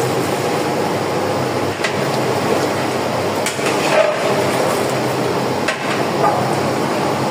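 Metal ladle stirring mutton curry in a large aluminium pot, knocking and scraping against the pot in a few sharp clanks over a steady background hiss.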